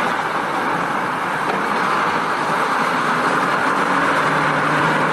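Water running steadily over a muddy plastic toy truck as it is washed clean, an even rushing hiss.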